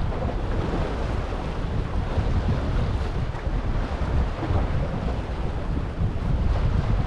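Wind buffeting the microphone with a steady, flickering low rumble, over small sea waves washing against the jetty rocks.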